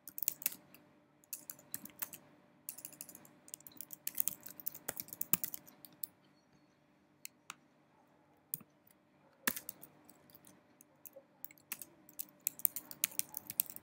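Typing on a computer keyboard: quick clusters of key clicks, thinning to a few single strokes for several seconds in the middle before a last run of fast typing.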